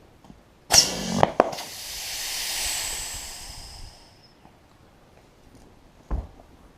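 Compressed air from a tire air chuck hissing into a mower tire's valve. It starts with a sudden blast and a few sharp clicks, then a high hiss that fades away about four seconds in. A short dull thump comes near the end.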